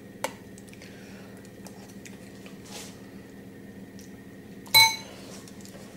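Metal spoon clinking against a glass mixing bowl of icing: a light tap just after the start, a few faint scrapes and ticks, and one loud ringing clink near the end, over a low steady hum.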